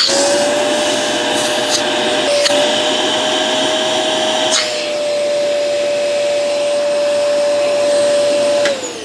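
Hoover UH75100 bagless upright vacuum's motor running with a steady whine, its hose fitted to a vacuum gauge to measure sealed and working suction. Between about two and four and a half seconds in, the pitch steps up slightly and a hiss of air joins it. The whine drops in pitch near the end as the motor winds down.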